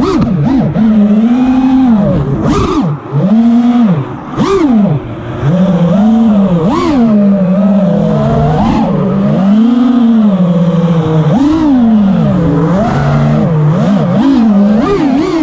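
FPV quadcopter's brushless motors and propellers whining, the pitch swooping up and down with constant throttle changes. There are brief throttle cuts about three and four and a half seconds in.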